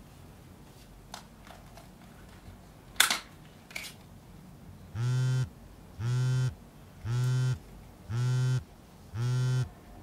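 A single sharp click about three seconds in, then a low, buzzy electronic tone beeping in even pulses, each about half a second long, roughly one a second.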